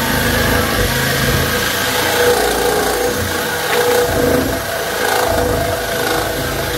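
Electric reciprocating saw running steadily as its blade cuts through a wooden board.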